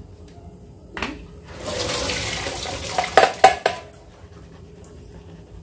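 Boiling water from a pan of jerked beef (charque) poured through a plastic colander into a stainless steel sink, splashing for about a second and a half as the meat is drained after boiling out its salt. This is followed by three sharp knocks of the pan against the colander.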